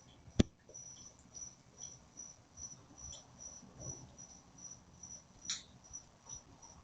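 Crickets chirping steadily, a high-pitched chirp about three times a second, picked up by a doorbell camera's microphone. A single sharp click about half a second in stands out, with a fainter one near the end.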